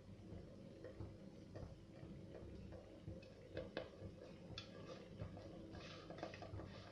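Knife cutting a slice from an almond-topped cake on a cake board: faint scattered ticks and light scraping, with a few sharper clicks about halfway through.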